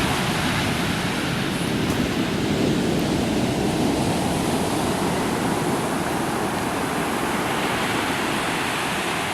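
Rough Pacific surf breaking on a sandy beach: a steady rush of waves that swells a little a few seconds in.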